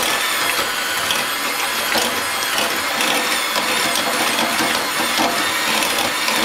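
Electric hand mixer running steadily, its beaters churning through a bowl of soft cooked butternut squash, potatoes and carrot.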